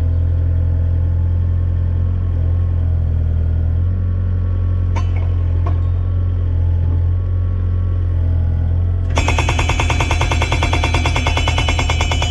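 Yanmar mini excavator's diesel engine running steadily; about nine seconds in, the hydraulic rock breaker on its boom starts hammering, a rapid, continuous stream of blows driving a timber fence post into the ground.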